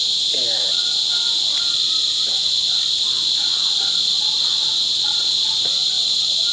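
Loud, steady insect chorus: an unbroken high-pitched buzzing drone, with faint brief chirps and a voice far beneath it.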